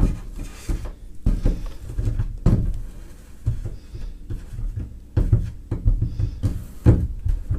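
Irregular knocks, scrapes and rubbing as a plastic welding iron is worked along a crack in a thin plastic bathtub, its tip stitching the plastic closed and its cord handled close by.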